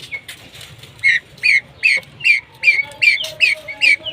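Pheasant calling in a rapid series of short, sharp, high notes, about two to three a second, starting about a second in.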